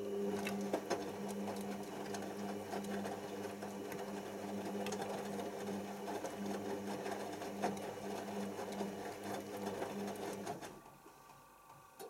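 Hoover Optima OPH714D front-loading washing machine's drum motor turning the drum during a rinse: a steady motor hum with wet towels and water sloshing and clicking in the drum. The motor stops near the end, pausing the tumble.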